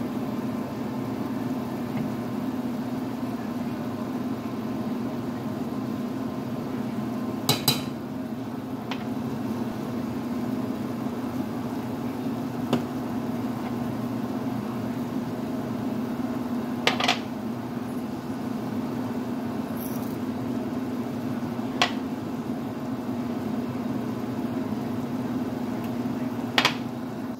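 Steady hum and hiss, broken by a handful of sharp clinks as spice jars are handled over a stainless steel soup pot.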